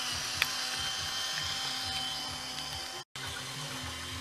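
Small electric motor of a CAT toy construction train whirring steadily as it runs along its track, with a sharp click about half a second in. Disco music plays faintly underneath, and the sound cuts out for an instant about three seconds in.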